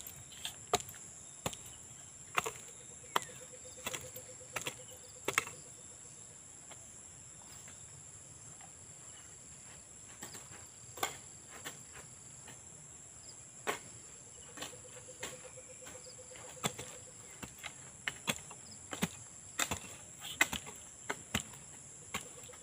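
Long-handled hoe chopping into loose soil in irregular, sharp strokes, with a pause of a few seconds before the strokes pick up again. Under them, a steady high-pitched drone of crickets and other insects.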